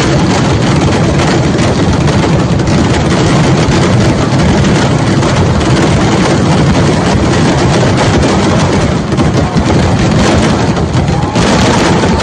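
Dense barrage of firecracker explosions from a temple fireworks display, the bangs so rapid they merge into one continuous loud rumble, easing briefly near the end.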